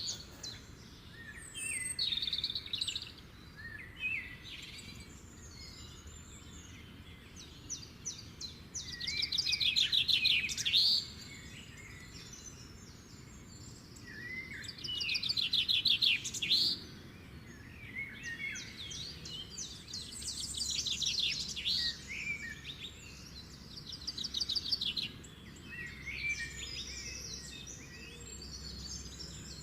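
Birds singing, with repeated chirps and several loud, rapid trilled phrases, over faint steady background noise.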